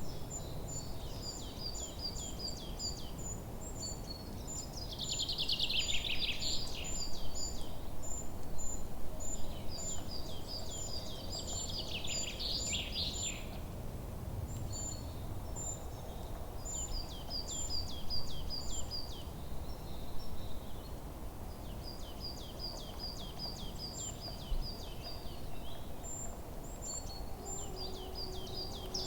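Forest birds singing: one gives a steady run of short, high chirps while another repeats trilled phrases of a few seconds each. A low, even rustle of wind in the leaves lies underneath.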